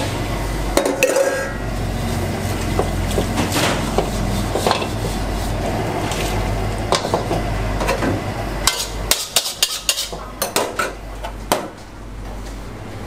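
Metal ladle and wire wok scrubber clanking and scraping against steel woks on a gas stove, over a steady low hum. The clanks come scattered, then in a quick run of sharp knocks late on.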